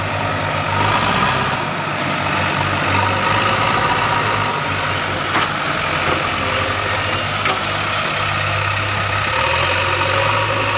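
Diesel tractor engine running steadily as it pulls a trolley loaded with soil over a rutted dirt track, its note shifting up and down a few times.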